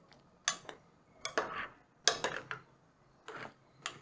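Metal spoon stirring a thick, milky chicken stew in a glass cooking pot, clinking and scraping against the pot's sides and bottom in a string of irregular knocks.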